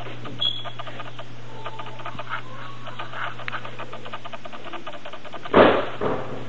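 A steady low hum with faint, rapid, even ticking, then two loud thumps about half a second apart near the end.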